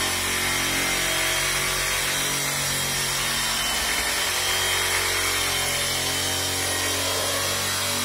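Electric rotary polisher running steadily at a constant speed while buffing car paint.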